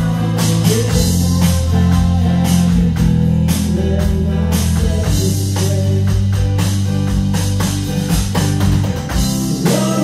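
A rock band playing live, with bass guitar, guitars and a drum kit keeping a steady beat.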